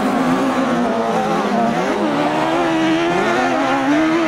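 Racing buggy engines at full throttle on an ice track, the pitch falling and rising as they lift off and accelerate, with a sharp rise about two seconds in. The sound is loudest near the end as a buggy passes close by.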